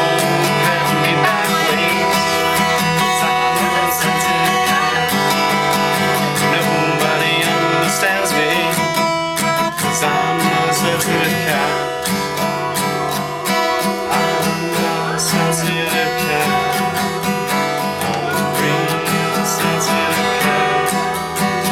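Acoustic guitar strumming chords steadily as the accompaniment of a song.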